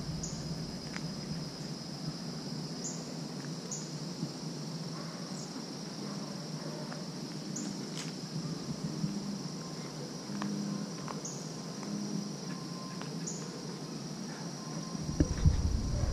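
A steady, high-pitched chorus of insects, with short higher chirps every second or two. Near the end come a few low thumps and knocks.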